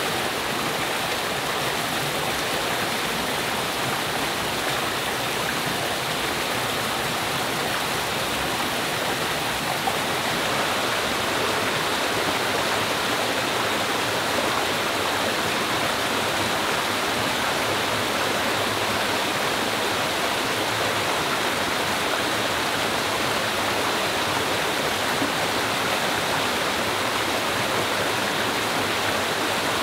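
Small rocky forest stream running steadily over a little cascade between boulders.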